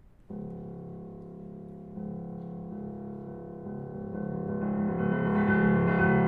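Piano playing the opening of an art song: a chord struck about a third of a second in and held, more notes added about two seconds in, and the sound swelling louder over the last couple of seconds.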